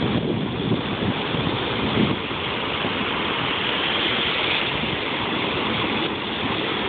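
Jet ski running over water: a steady rush of engine and water spray.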